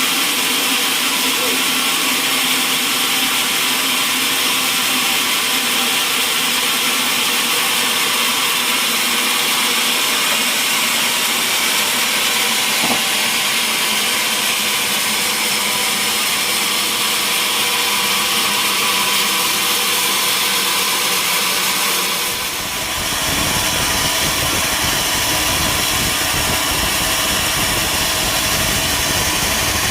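Sawmill machinery running steadily, a dense mechanical whine with hiss. About three-quarters of the way through the sound shifts briefly and a deep engine rumble comes in and continues.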